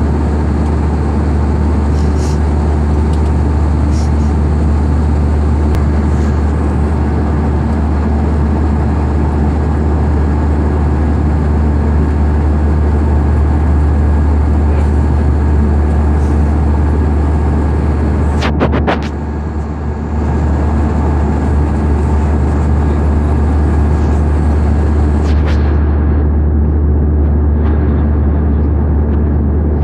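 Steady, loud engine drone with a deep hum and an even rushing noise, briefly dipping about two-thirds of the way through.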